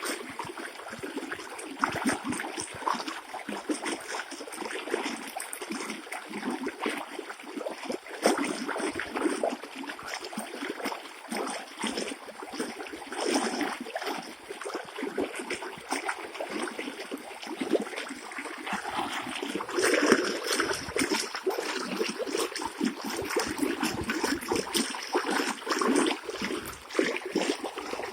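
Water erupting and splashing: a continual, uneven gushing and splattering made up of many small irregular surges.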